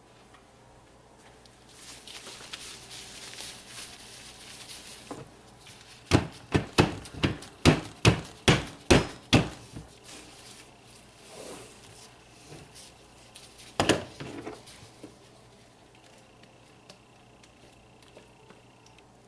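A soap mold rapped against the countertop nine or ten times in quick succession, about two or three sharp knocks a second, then once more a few seconds later, the usual way to settle freshly poured soap batter and knock out air bubbles. Soft rustling comes before the knocks.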